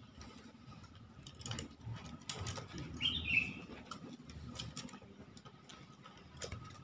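A bird gives one short, high chirp that falls in pitch about three seconds in, over scattered faint ticks and scuffs.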